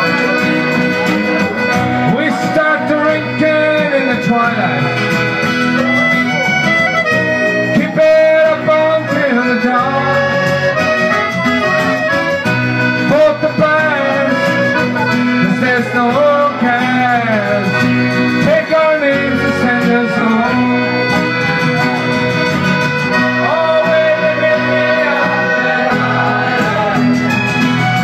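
Live folk-rock band playing at full volume: button accordion, acoustic and electric guitars, with a voice singing over them.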